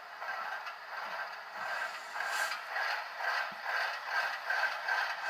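Diesel start-up and running sound from the Tsunami sound decoder in an HO scale Intermountain ES44DC, played through the model's small speaker: a rhythmic mechanical clatter at about three beats a second, tinny with no deep tones.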